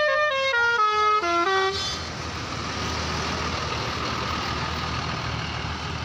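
Basuri telolet multi-tone horn on a coach playing a quick run of changing notes as the bus passes close, cutting off about two seconds in. After that comes the steady noise of the bus's engine and tyres as it drives away.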